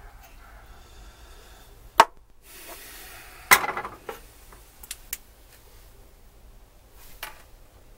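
Small metal clicks and clinks from a wire hook and coil spring being worked on a carburetor's throttle linkage. There is a sharp click about two seconds in, a louder metallic clatter with a short ring a second and a half later, then a few lighter ticks.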